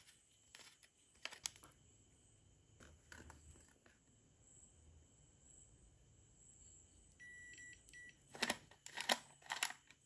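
Faint clicks and handling noises of a screwdriver working the plastic charging-fuse holder cap on an e-bike battery pack, with the loudest clicks in a cluster near the end. A short run of faint high beeps comes about seven seconds in.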